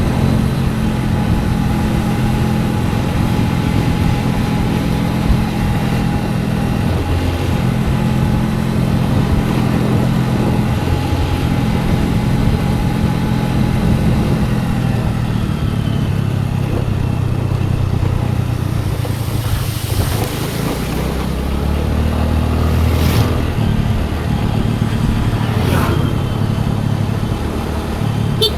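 Scooter engine running steadily under way, with road and wind noise. Its note drops for a couple of seconds about three-quarters through, then picks up again, and two short clicks come near the end.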